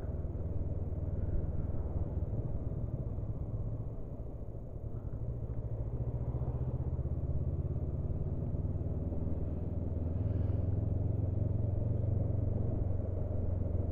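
Honda CB500F parallel-twin engine running as the motorcycle rides along at town speed, a steady low rumble. It eases off slightly about four seconds in, then builds again.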